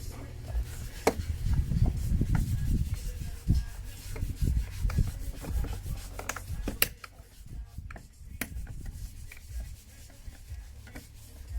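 Rubbing and scraping of car door trim being peeled and pried off by hand, with several sharp clicks; busier in the first half, quieter after about seven seconds.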